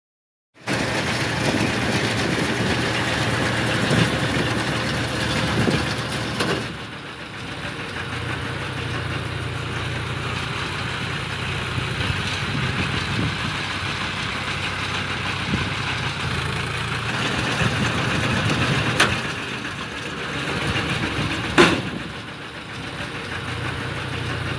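Tractor engine running steadily while it drives a Redlands mini round baler through straw, with two sharp knocks near the end.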